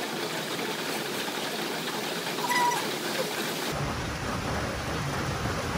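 Steady rain falling, an even hiss with no pauses; it turns fuller and lower a little past halfway.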